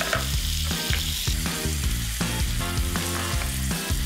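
Strips of beef fillet sizzling and spattering as they fry in hot vegetable oil in a frying pan.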